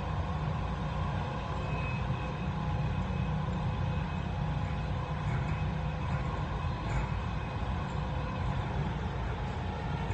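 Dubai Metro train running steadily along an elevated track, heard from inside the car: a constant low rumble of rolling wheels with a few faint steady tones above it.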